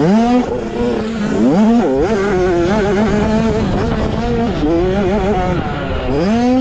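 Engine of a 65cc two-stroke motocross bike ridden hard: it revs up sharply at the start, again about one and a half seconds in and once more near the end, holding high revs with a wavering pitch in between as the throttle is worked.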